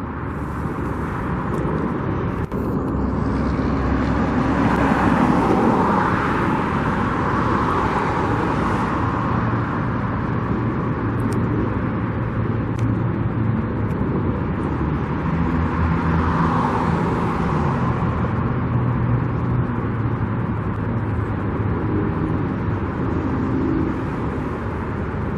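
Steady outdoor traffic noise: motor vehicles passing, with engine hum and tyre noise that swell twice as vehicles go by.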